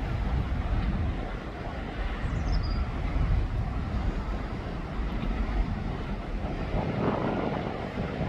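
Low, uneven rumble of heavy earthmoving machinery working on a construction site.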